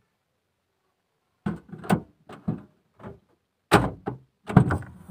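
Hatchback tailgate being unlatched and handled: a run of sharp clunks and knocks starting about a second and a half in, the loudest near the end.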